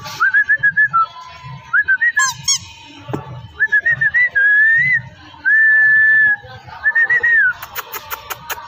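Whistling: groups of short warbling notes and one long held note, with a quick run of sharp clicks near the end.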